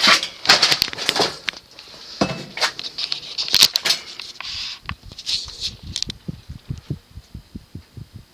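Fasco Heat Cycler industrial ceiling fan running at medium speed and moving air. Irregular rustling gusts fill the first few seconds, then give way to a steady low throbbing of about four pulses a second.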